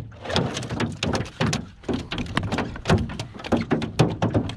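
A freshly caught flounder flopping on the metal floor of a small boat: a quick, irregular run of wet slaps and thumps.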